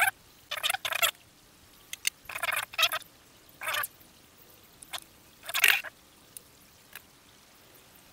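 Laser-cut MDF pieces of a miniature cabinet scraping and rubbing against each other as they are pressed together by hand. It comes as a series of short scraping bursts, the loudest a little past halfway, with a few light clicks near the end.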